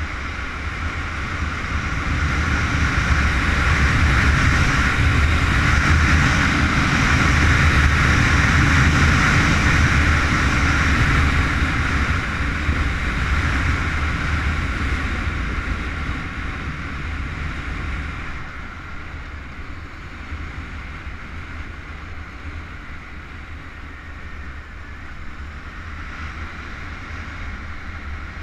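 Honda CBR919RR Fireblade's inline-four engine and wind rush, heard from an onboard camera while the motorcycle is ridden at speed. The rush swells over the first few seconds and stays loud, then eases off in the second half.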